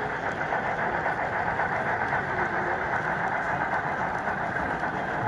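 Steady background hubbub of a crowded exhibition hall, an even din of many voices and machinery with no single sound standing out.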